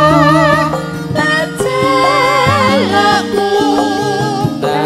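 Live langgam campursari music: a female singer holds long, wavering notes into a microphone over keyboard accompaniment with a steady beat.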